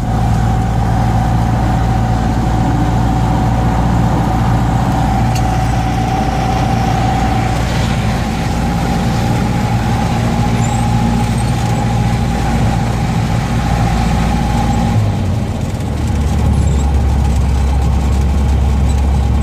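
Single-engine Cessna's piston engine and propeller heard from inside the cabin, running steadily; the engine note drops lower about three-quarters of the way through.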